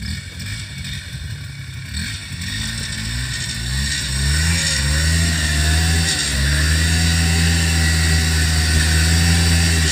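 ATV engine revving up and held at high revs, straining in a muddy bog, with a brief drop in revs about six seconds in. The quad is bogged down and does not make it through.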